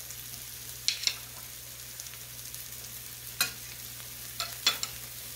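Onions, celery, mushrooms and flour frying in oil and butter in a skillet, a steady sizzle as the roux browns, with a utensil scraping and tapping against the pan several times.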